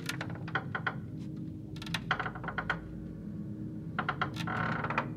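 Quick sharp clicks or taps in three short bursts, near the start, about two seconds in and about four seconds in, over a low steady hum.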